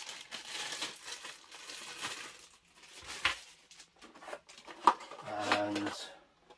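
Plastic packaging bag crinkling and rustling as parts are unpacked from a cardboard box, with two sharp knocks and a short squeak near the end.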